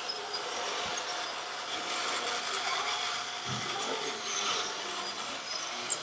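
Small electric motors and gearboxes of radio-controlled model construction machines whirring, with scattered light clicks.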